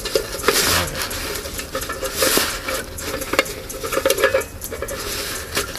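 Nylon drawstring stuff sack rustling as hands open it, with light clicks and clinks from the titanium frying pan and stove inside. The rustling swells loudest twice, about half a second in and just past two seconds in.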